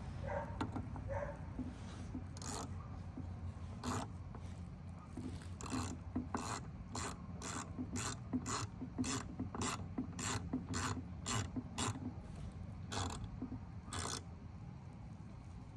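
Hand ratchet wrench clicking as small screws are driven in and tightened: a few scattered clicks, then a steady run of about two clicks a second through the middle.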